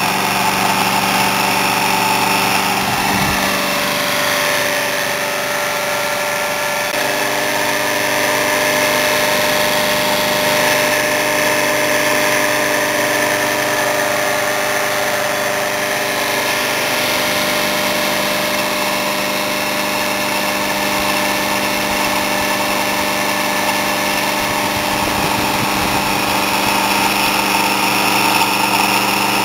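Homemade iron-core axial flux pulse motor running steadily: a continuous mechanical hum made of several steady tones, which shift slightly in pitch a few times.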